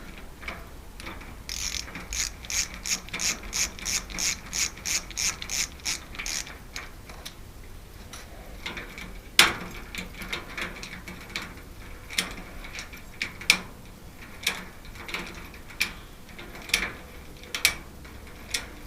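Metal ratcheting clicks at about three a second for about five seconds, then slower, scattered single clicks with a sharper snap about nine seconds in, from a lock's mechanism or a tool being worked on it.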